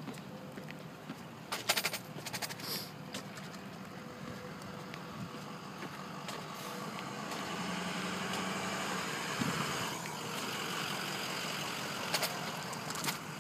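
Fire trucks' engines idling down the street: a steady low engine hum, with a few sharp clicks about two seconds in and a rushing noise that swells in the middle and then eases.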